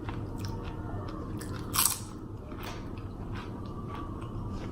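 Close-up chewing of loaded nachos: tortilla chips crunching between the teeth, with one loud crunch a little under two seconds in and smaller crackles and clicks around it.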